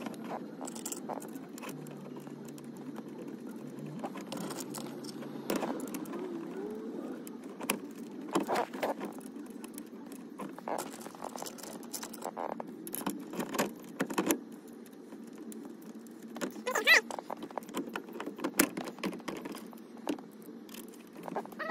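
Irregular metallic clinks and taps of bolts and hand tools as a steering wheel is bolted onto a quick-release hub, with one louder knock about three-quarters of the way through, over a steady low hum.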